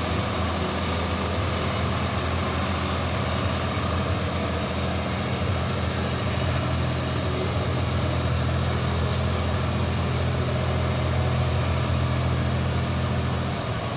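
Tractor engine running steadily at low speed while driving a tractor-mounted road sweeper, with the rotating sweeper brushes scrubbing the concrete road. It eases off slightly near the end.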